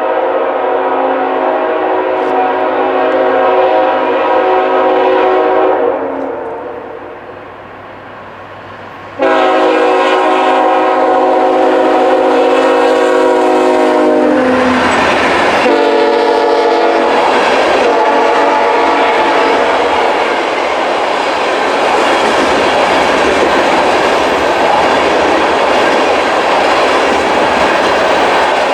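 Diesel locomotive air horn blowing a loud chord, which fades out and then sounds again. Its pitch drops as the locomotive passes, and it carries on lower before stopping. The train then rolls by with steady wheel rumble and rail clatter.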